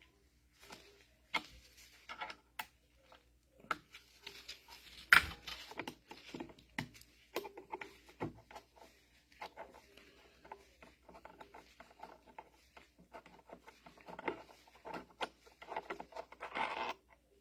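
Hands handling small metal valve parts and tools on a workbench: scattered clicks, taps and rubbing, with one sharp knock about five seconds in and a short burst of rattling near the end.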